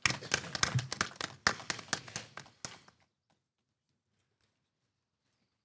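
Scattered clapping from a small audience, a run of separate claps that stops about three seconds in, followed by near silence.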